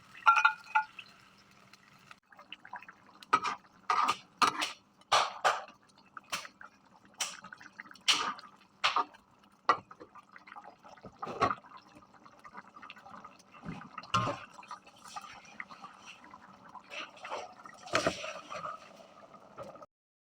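A run of irregular sharp clicks and knocks, about twenty spread unevenly, with dripping and splashing liquid between them.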